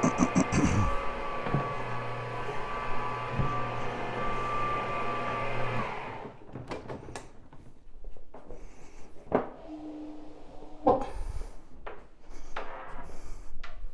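Rotary floor-cleaning machine running steadily with a steady hum, scrubbing a wool rug, then switching off about six seconds in, followed by a few scattered knocks and clicks.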